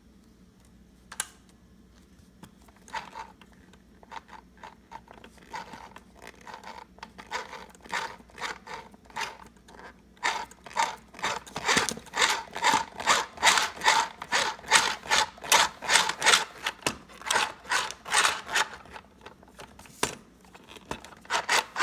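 Small household sewing machine's needle mechanism clacking in a rhythm of two or three strokes a second. The clacks start as scattered, faint clicks and become louder and steady about halfway through. The machine is being run while it fails to thread and sew properly.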